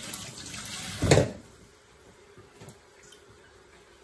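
Kitchen tap running into the sink while hands are washed; the water stops about a second in, with a loud thump at that moment. Then only a few faint clicks.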